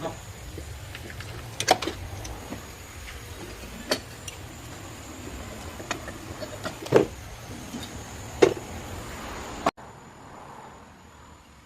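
A few sharp knocks, a second or more apart, over a steady low hum; the sound drops abruptly to a quieter hum near the end.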